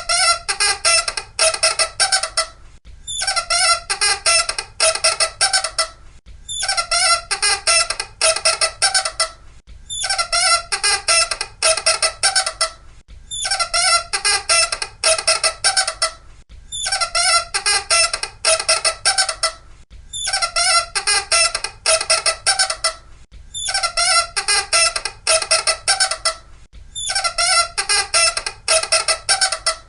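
Loud, shrill squeaking: quick squeaks in runs of about three seconds, broken by short pauses, the same pattern repeating over and over like a loop.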